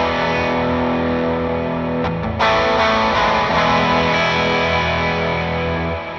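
Electric guitar played through an amp modeler with a Matchless 2x12 cab impulse response: chords ringing out, one new strum about two seconds in, then the sound dies away near the end.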